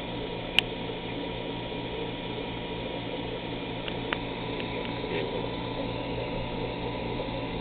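Vacuum pump running with a steady hum while it draws water into bottles for a wine-bottling trial, with one sharp click about half a second in and a few faint ticks later.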